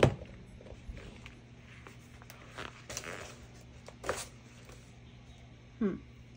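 Paper handling: a magazine page pulled off a gel printing plate is lifted and laid down, with a sharp tap at the start and several brief rustles and crinkles. A short, low, falling sound comes near the end, over a steady low hum.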